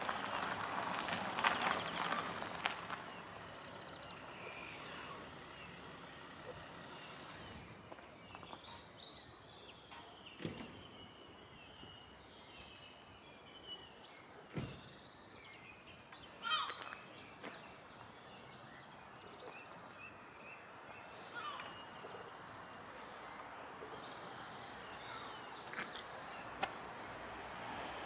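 Small birds chirping and singing over a steady background hiss, with a louder rustling patch in the first few seconds and a few scattered sharp knocks.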